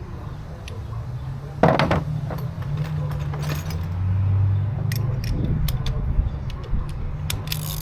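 Metal hand tools clinking and knocking against the mower's steel parts, with one loud knock just under two seconds in and a short scrape around the middle, over a steady low hum.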